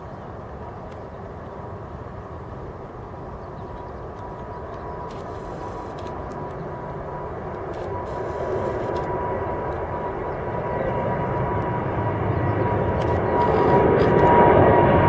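Boeing 777-300ER's twin GE90-115B turbofan engines at takeoff thrust during climb-out, a steady rushing noise with a thin whine held through it, growing steadily louder as the jet comes closer.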